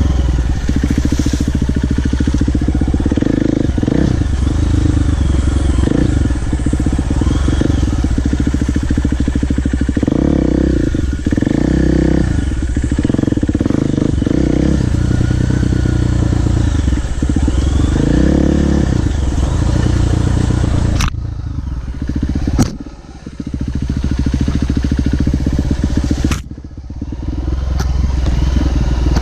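Off-road dirt bike engine on a downhill trail, running at low throttle with short revs rising and falling. Twice near the end the throttle shuts and the engine drops quieter, with a few sharp knocks.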